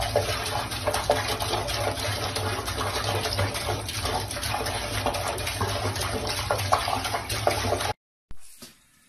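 Tap water running into a sink, splashing as a cat paws at the stream. It cuts off suddenly about eight seconds in.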